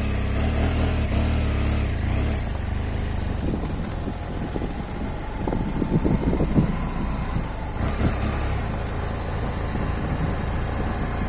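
BMW F 800 GS Adventure motorcycle's parallel-twin engine running at low speed, a steady low rumble, with uneven louder bumps around the middle.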